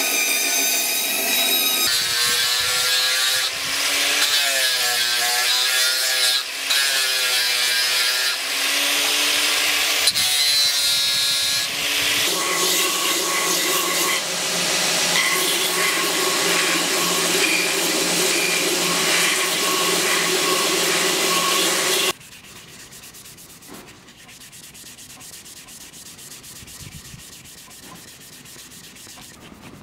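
Power tools working wood: a bandsaw cutting the wooden scabbard pieces, then a belt grinder sanding the wood, its pitch wavering for a while before running steadier. The machine cuts off suddenly about two-thirds of the way through, leaving quieter rubbing by hand on the wood.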